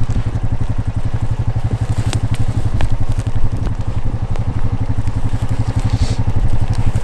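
An engine running steadily at idle, a low, evenly pulsing rumble, with a few faint clicks over it.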